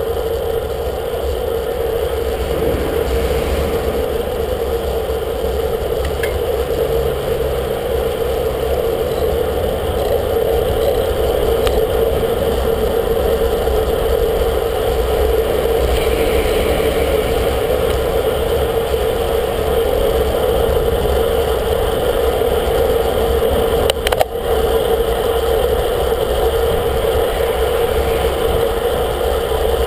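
Road bike riding at speed, heard on a bike-mounted camera: steady wind rush and road rumble, with a single sharp knock about 24 seconds in.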